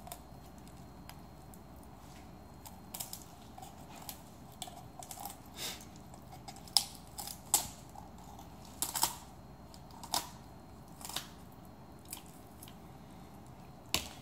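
Kitchen shears snipping through a raw chicken's rib bones along the backbone: about a dozen irregular sharp crunches, up to about a second apart, as the spine is cut free.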